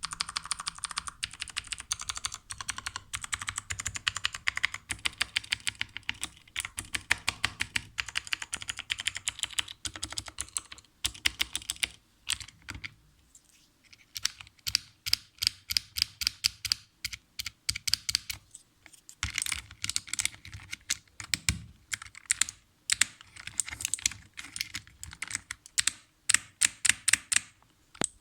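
Typing on a Redragon mechanical keyboard with lubed switches: rapid runs of key clacks, a short pause about thirteen seconds in, then typing resumes in bursts.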